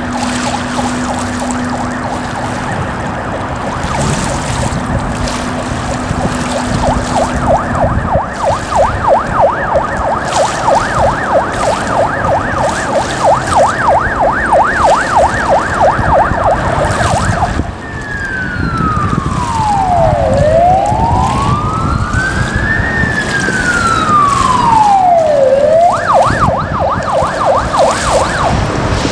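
Electronic emergency-vehicle siren in fast yelp mode, switching about two-thirds of the way through to two slow wail sweeps down and up, then back to the yelp near the end.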